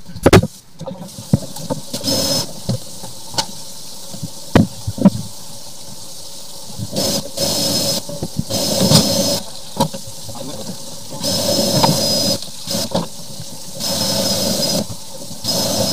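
Drain-cleaning machine working a red line down a clogged kitchen sink drain. It runs in repeated on-off bursts of one to two seconds with a high whine, after a few sharp knocks in the first seconds.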